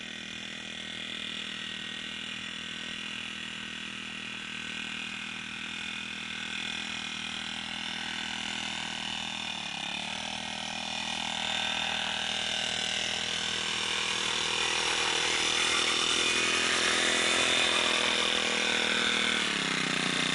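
Small four-stroke brush cutter engine, a Honda GX35, running steadily and growing louder, with a brief dip in pitch about halfway and a drop in pitch near the end as it slows.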